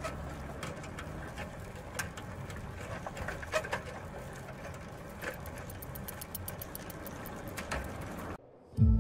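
Bicycle approaching along a dirt lane with scattered ticks and a quick run of clicks, over outdoor ambience with birds calling. Near the end the sound cuts out and music starts, louder.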